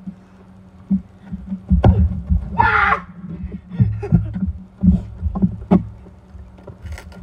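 Running footsteps on grass and a football being kicked, heard as dull thumps over a low rumble, with a brief voice about three seconds in.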